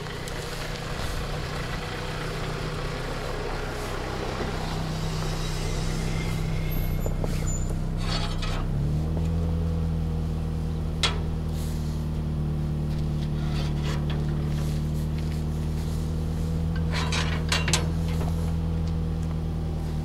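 Car engine idling steadily, growing louder and steadier about nine seconds in. A few sharp metallic clanks from a sheet-metal gate being swung shut.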